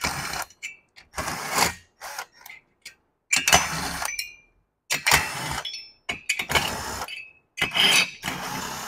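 Cordless electric driver spinning already-loosened cylinder head nuts off a Rotax 447 engine's studs, in about eight short bursts of motor whir with brief pauses between them.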